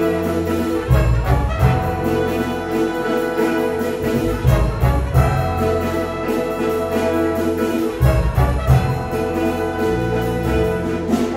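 Jazz big band playing: saxophone, trombone and trumpet sections holding chords over the rhythm section's drums and bass, with a steady beat.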